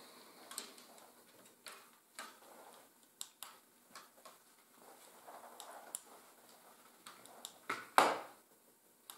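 Scattered light clicks and taps of hard plastic building-brick parts being handled on a toy fire truck's ladder boom, with one louder knock about eight seconds in.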